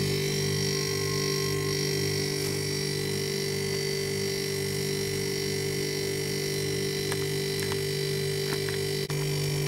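Refrigeration condensing unit running: a steady compressor and fan hum with several fixed tones and a low throb about twice a second.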